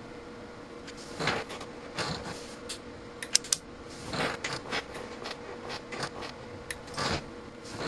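Homemade 2 kV surge tester firing repeated transient pulses into a handheld multimeter under test: about a dozen irregular short clicks and snaps, two of them sharper around the middle, over a faint steady hum.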